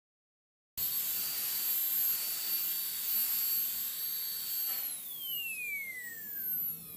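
High-speed dental handpiece with a tapered diamond bur, bevelling the broken edge of a fractured front tooth. It starts abruptly just under a second in with a steady high whine and hiss. About five seconds in, the whine falls steadily in pitch as the handpiece spins down.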